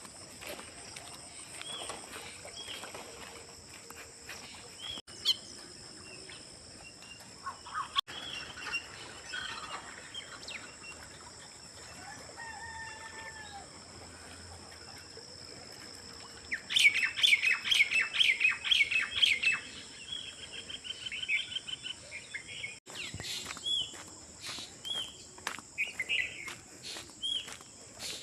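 Wild songbirds chirping and calling, with a loud run of rapid chirps a little past halfway. Over them runs a steady high-pitched insect drone.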